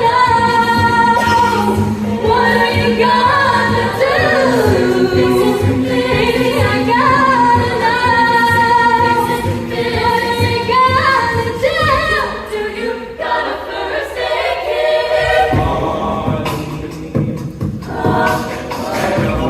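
A cappella vocal group singing a pop song in close harmony, with a sung bass line and vocal percussion underneath. About twelve seconds in the low bass drops out for a few seconds before the full group comes back.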